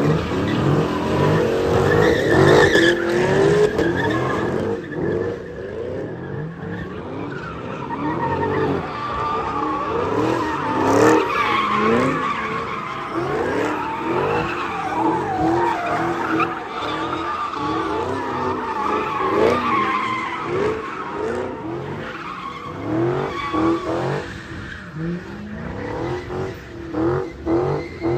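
Car tyres squealing and an engine revving hard as a car slides in circles doing donuts. The squeal wavers up and down in pitch throughout and eases off a little near the end.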